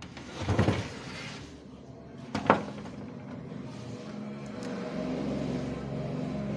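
Handling of a manual cup sealer's plastic film-holder parts while the sealing-film roll is fitted: a rustling knock about half a second in, then a single sharp click about two and a half seconds in. A steady low hum with several pitches comes in over the second half.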